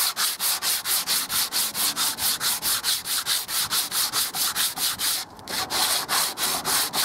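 120-grit sandpaper on a sanding block rubbed quickly back and forth by hand over cured two-part filler in a wooden threshold, about four strokes a second, with a brief pause about five seconds in. This is the rubbing down of the hardened filler flush with the wood.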